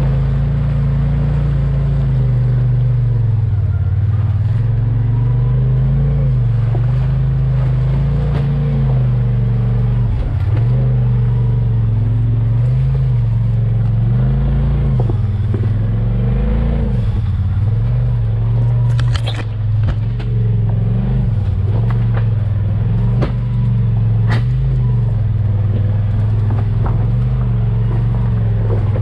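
Off-road vehicle engine running under constantly changing throttle, its pitch rising and falling as it works along a trail. A few sharp knocks and clatters come about two-thirds of the way in.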